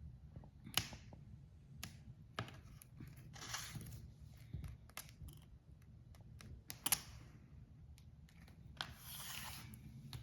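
Scattered sharp clicks and two longer scraping rustles of hands working a rubber fridge door seal and the plastic door liner.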